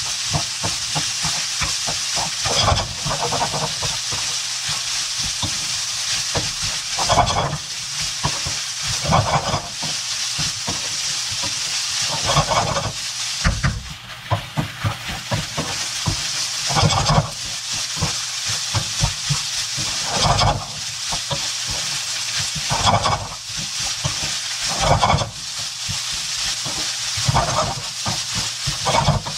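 Shrimp fried rice sizzling in a hot wok, with the spatula scraping and knocking against the wok at irregular intervals of a couple of seconds as the rice is stir-fried.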